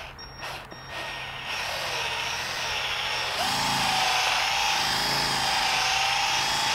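Small handheld electric polisher with a foam pad running on a car's painted fender, polishing out color-sanding scratches. It builds up over the first few seconds into a steady whine.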